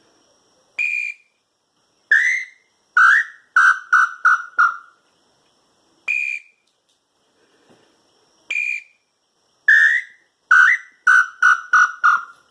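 Handmade wooden hunter's bird call (piu) blown in short whistled hoots: a single higher note, a pause, then a run of about five quick, lower, falling notes. The phrase plays twice.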